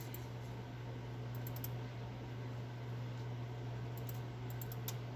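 Light clicking at a computer, in short clusters about a second and a half in and again near the end, over a steady low hum.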